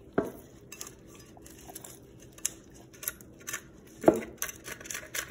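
Kitchen knife scraping and clicking over the scales and head of a whole yellowtail snapper in a plastic bin, a run of small scrapes and ticks. There are two sharp knocks, one just after the start and a louder one about four seconds in.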